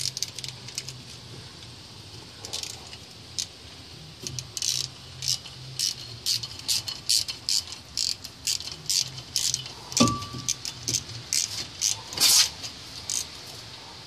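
Small hand tools clicking and clinking irregularly against the steel wheel hub and brake rotor, with a short ringing metal ping about ten seconds in.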